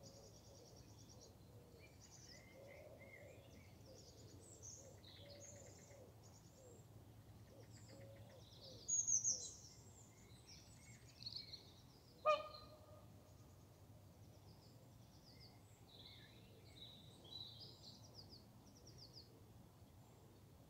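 Faint outdoor bird chorus: small birds chirping and trilling on and off, with a louder high call about nine seconds in and one short sharp call about twelve seconds in.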